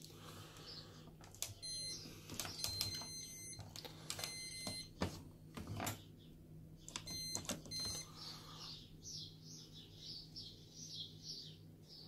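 Hoover Dynamic Next washing machine's control panel beeping as its program dial is turned: four short runs of high electronic beeps, with clicks of the dial among them.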